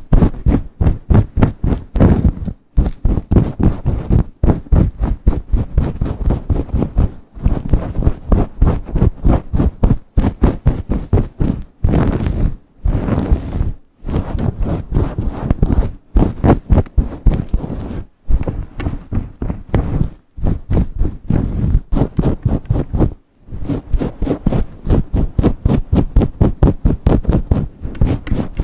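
Long fingernails and fingertips scratching and rubbing fast and hard through hair: many quick strokes a second, in runs broken by brief pauses.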